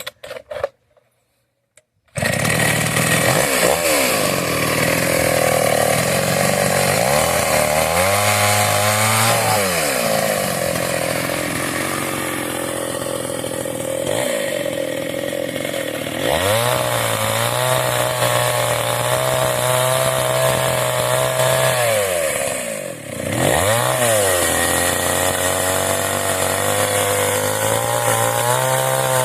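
Kawashima chainsaw's two-stroke engine catching after a few short bursts about two seconds in, then running loud and steady. It is revved up and down several times, with a brief drop in speed near the end.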